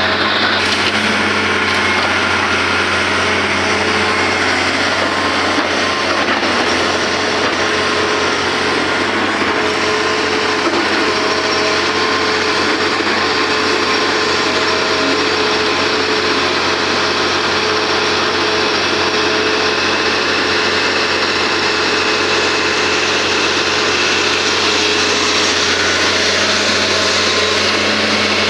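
Excavator's diesel engine running steadily and loud, close up, with a constant whine over it as the machine works.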